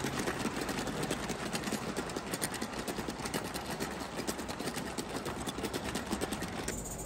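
O gauge live steam model of an LNER L1 tank locomotive running, giving a rapid, even patter of exhaust beats and wheel clicks. The sound changes abruptly near the end, when the brighter high part drops away.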